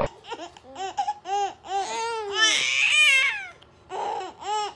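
Two babies laughing at each other in a run of short, high-pitched giggles that build to the loudest laughing about two and a half to three seconds in, then a short pause and two more brief laughs near the end.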